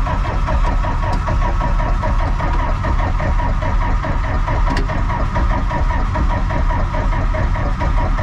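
A snow loader's engine being cranked by its starter on jumper cables, turning over in a fast, even rhythm for several seconds without catching, then stopping. The battery is dead, and the engine is cold-soaked; the owner suspects its block heater is not working.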